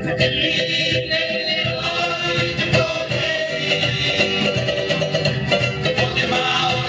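Traditional Rapa Nui song performed live: several voices singing together over instrumental accompaniment.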